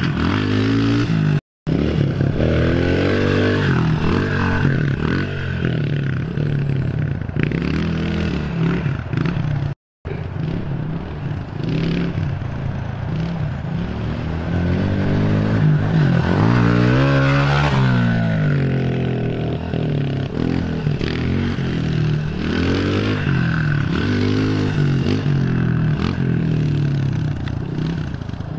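Honda CRF110F pit bike's small single-cylinder four-stroke engine being ridden hard, the revs rising and falling again and again with each burst of throttle. It is loudest about seventeen seconds in, and the sound breaks off for an instant twice, once near the start and once about ten seconds in.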